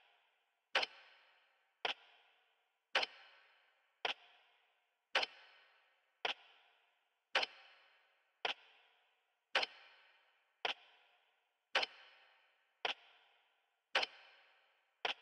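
A clock ticking: slow, even ticks a little under one a second, alternating stronger and weaker strokes in a tick-tock pattern.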